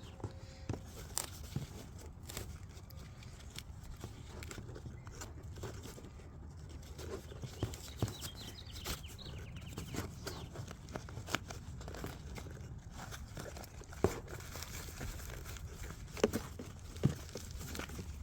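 Nylon plate-carrier webbing and pouch being handled as MOLLE straps are threaded through: fabric rustling with scattered light knocks and clicks, the sharpest near the end.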